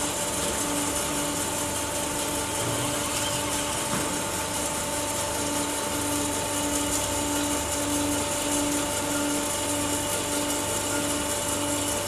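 Shark 332 CNC FE automatic metal-cutting band saw running under power: a steady machine hum and hiss, with a lower tone pulsing on and off at a regular rate.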